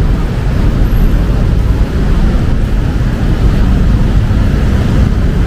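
Steady low rumble of road traffic on a wet city street, with a fainter hiss above it.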